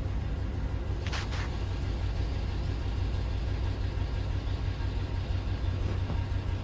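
A 2004 Chevy Avalanche's V8 engine idling steadily, running again now that its weak engine-computer ground has been restored. A brief noise cuts in about a second in.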